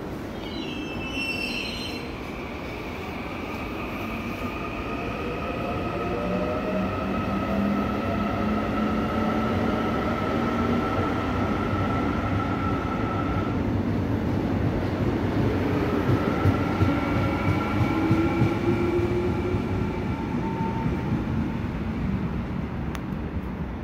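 An electric subway train pulls away from the platform, its IGBT traction inverter whining in tones that rise in pitch as it speeds up, in two rising runs. There is a short high chirp about a second in, and the train fades near the end.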